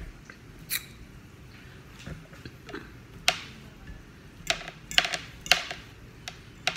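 Close-up eating sounds: chewing with an irregular series of sharp clicks and smacks, the loudest a little past three seconds in.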